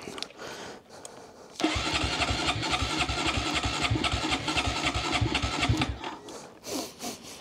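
Honda Monkey 125's single-cylinder engine cranked on the electric starter for about four seconds, turning over in quick, even pulses and stopping without catching. It is a hard start after three months of storage.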